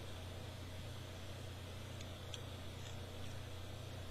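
Steady low hum and hiss in the recording, with a few faint clicks about two to three seconds in as the plastic action figure's parts are worked by hand.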